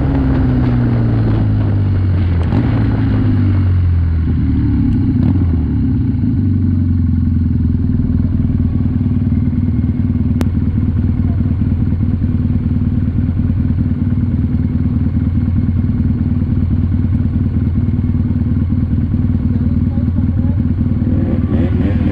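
BMW R nineT's air/oil-cooled boxer-twin engine dropping in pitch through a few steps as the bike slows to a stop, with wind rush fading over the first few seconds, then idling steadily in neutral.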